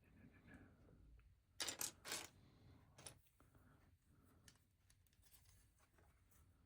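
Hands handling loose LEGO plastic bricks: two short rattling clatters of pieces about two seconds in, then a single sharp click, with faint small clicks after.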